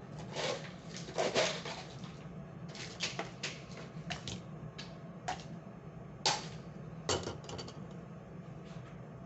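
Irregular clicks and clatter of utensils and cups being handled, over a steady low hum.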